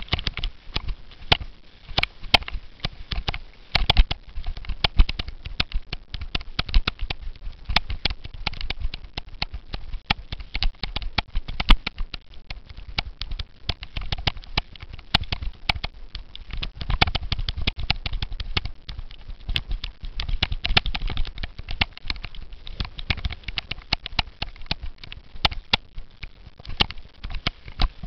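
Cyclo-cross bicycle rattling and jolting over rough grass, a dense run of irregular knocks and clicks over a low rumble.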